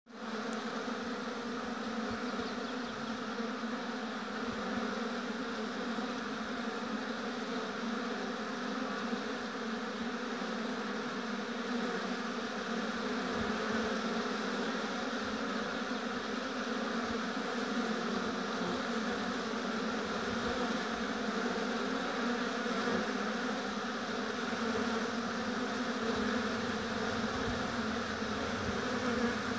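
Many honeybees buzzing together in a steady, unbroken hum.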